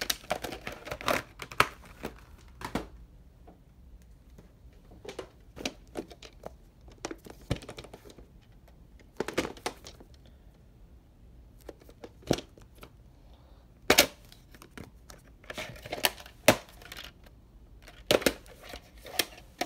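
Hard plastic clamshell VHS cases and a VHS cassette being handled: scattered plastic clicks, knocks and crinkly rustles at irregular intervals, the sharpest about two-thirds of the way through.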